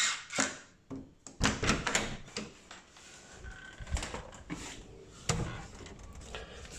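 Door hardware being handled at a smart lock: a run of short clicks and knocks, bunched about one and a half to two and a half seconds in, with more near four and five seconds in, just after the lock's motor whir stops.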